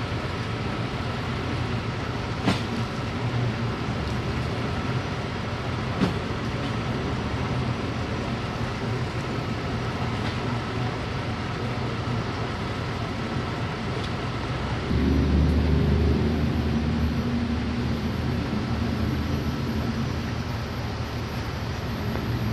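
Delivery truck engine running at idle, a steady drone with a faint high whine. About fifteen seconds in, a deeper and louder engine rumble comes in, then slowly eases off. Two sharp clicks sound in the first few seconds.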